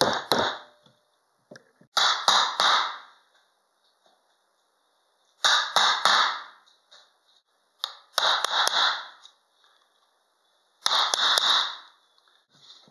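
Hammer blows on a wood chisel, chopping a hole into a wooden board. The blows come in five quick flurries of a few strokes each, about two to three seconds apart.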